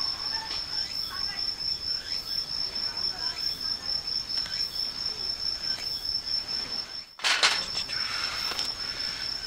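A singing insect trilling steadily on one high pitch. It drops out briefly about seven seconds in and is followed by a short burst of noise, then the trill carries on.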